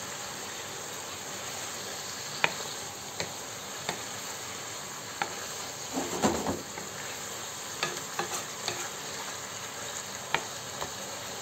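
Diced chicken sizzling steadily in a frying pan as its cooking water boils off, with a wooden spoon stirring it and knocking against the pan now and then, a few knocks in quick succession about six seconds in.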